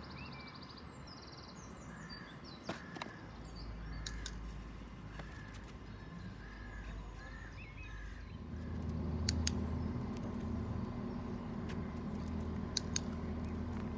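A bird calling repeatedly, a run of about eight short calls over several seconds, with a few sharp clicks. A steady low rumble sets in just past the middle.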